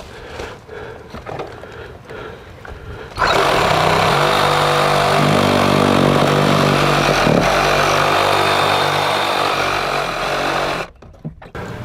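A handheld power tool starts about three seconds in and runs for about seven seconds, its pitch dipping and recovering as it works, before stopping. It is being used to cut brittle CPVC water pipe that cracked instead of cutting cleanly in a manual PVC cutter. Light handling clicks come before it starts.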